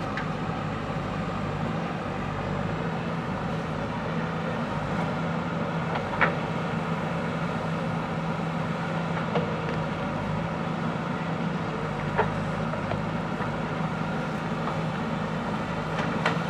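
JCB backhoe loader's diesel engine running steadily under work, with four short sharp knocks spread through.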